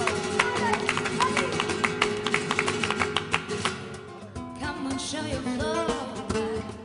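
Flamenco music: acoustic guitar with rapid sharp strokes, then from about four seconds in a wavering singing voice over the guitar.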